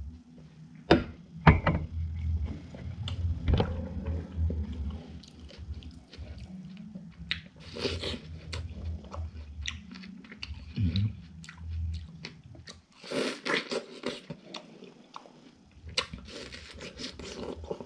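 A person takes a few swallows of a drink from a glass, then bites into a slice of watermelon and chews it close to the microphone. Short sharp mouth clicks run throughout, with heavier crunching bites about eight and thirteen seconds in.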